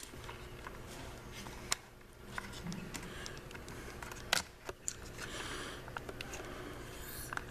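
Faint handling sounds with a few sharp clicks as fingers and a screwdriver work at the fuse holder on a ride-on toy's 24-volt battery pack, getting the blown fuse out.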